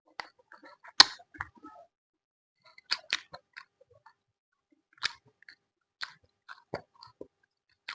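Close-miked chewing and crunching of food, with irregular mouth clicks and crackles. The sharpest crunch comes about a second in, and further clusters follow a few seconds apart.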